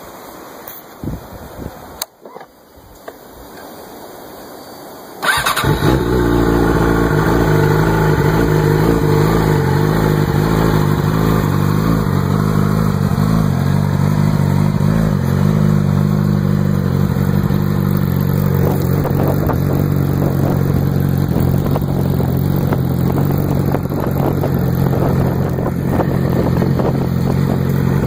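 Yamaha R6 inline-four sportbike engine starting about five seconds in through an FMF Apex titanium exhaust, then idling; the idle wavers for several seconds before settling into a steady note.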